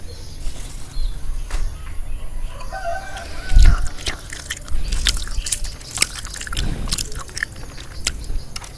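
Crisp crackling of deep-fried battered frog being torn apart by hand and chewed, with sharp crackles throughout. A rooster crows briefly in the background about three seconds in, followed by a low thump.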